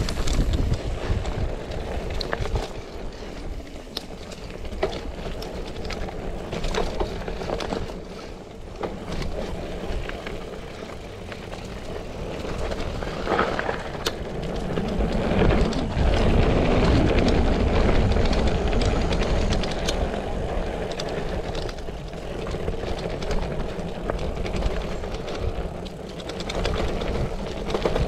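Mountain bike being ridden fast down a dirt trail: a steady rush of wind over the microphone and tyre noise, with scattered rattles and knocks from the bike. It grows louder about halfway through.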